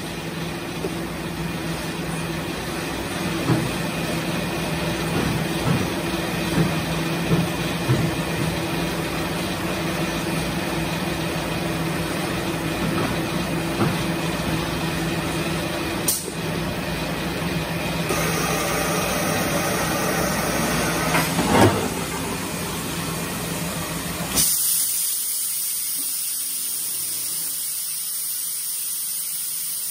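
Industrial machine running with a steady hum and scattered clunks. About three-quarters of the way through, it switches abruptly to a steady, high hiss like escaping compressed air.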